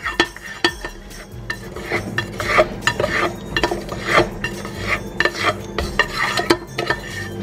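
A utensil scraping and clinking irregularly against a bowl as a cup of brown butter is scraped into cake batter.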